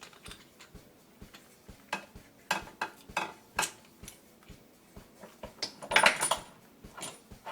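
Metal tools and parts clinking and clanking while the new rear shock absorber is bolted in: a few sharp clinks from about two seconds in, then a louder cluster of clanks about six seconds in.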